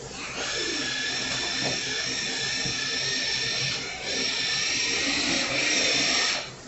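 Kitchen faucet running water into the sink: a steady hiss with a thin whistle, dipping briefly about four seconds in and shut off near the end.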